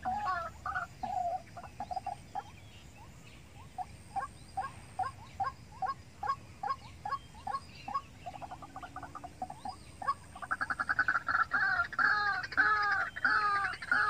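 White-breasted waterhen calling. Short runs of repeated notes at about three a second are broken by a brief trill past halfway, then a loud, fast series of repeated 'kru-ak' calls from about ten seconds in.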